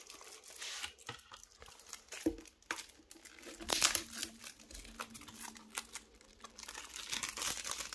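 Plastic shrink wrap on a Blu-ray case being picked at, torn and peeled off: irregular crinkling and crackling with small tearing sounds.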